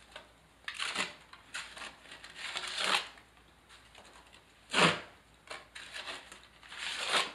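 Several short scraping, rustling strokes of a trowel working thinset mortar and sheet membrane at the base of a shower wall, the loudest about five seconds in.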